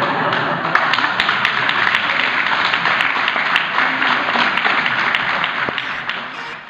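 Crowd applauding: dense, steady clapping of many hands that dies down near the end.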